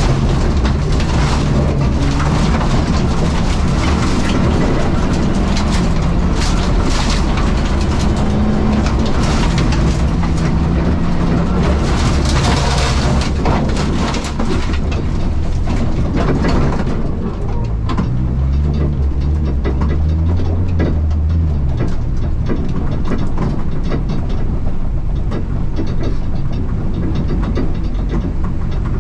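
Supercharged R53 Mini Cooper S engine, heard from inside the stripped cabin, running at changing revs over a loose dirt course, with grit and stones crackling against the body. About 17 seconds in, the crackle falls away and the engine settles to a lower, steadier note.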